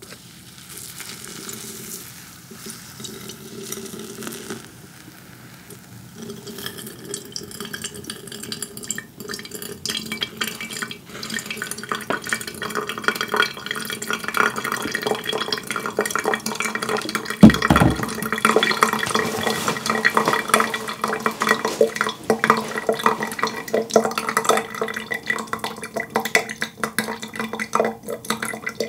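Hot water poured from a kettle into a paper filter in a ceramic pour-over coffee dripper, first wetting the filter and then the coffee grounds, with water trickling and dripping through into a glass carafe below; the pouring grows louder about six seconds in. A single thump about halfway through.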